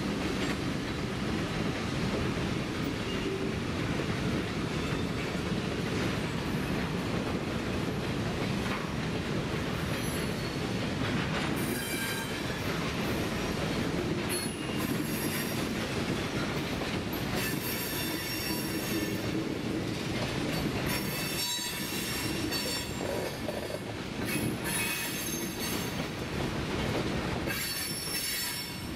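Freight train passing: the two EMD GP38 diesel locomotives, each with a 16-cylinder two-stroke engine, run by at the start, then covered hoppers and tank cars roll past with a steady rumble and clatter. From about ten seconds in, the car wheels squeal against the rails in repeated high-pitched screeches.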